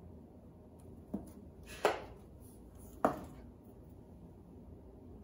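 Three light, sharp taps of a metal measuring spoon against plastic spice containers and a mixing bowl, about a second apart, as salt and pepper are measured out; the last two are the loudest.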